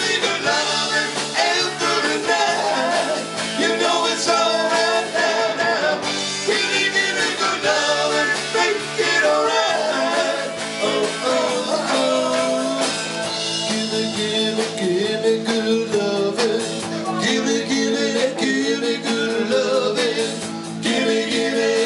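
Live rock band playing: men singing lead and harmony vocals over electric guitars and bass guitar.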